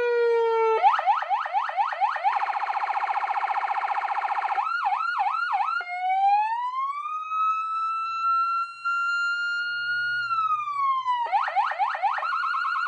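TOA AS920 electronic siren cycling through its tones. It starts on a falling wail, then quick repeated rising yelps and a fast warble, then a few slower sweeps. A long rising wail follows, holds, and drops, and it ends with quick yelps again.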